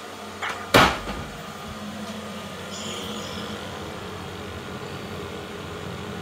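A sharp knock about a second in, then the steady hum of a Worcester Bosch Greenstar 30 CDI combi boiler firing on high, its fan and burner running to meet an open hot tap.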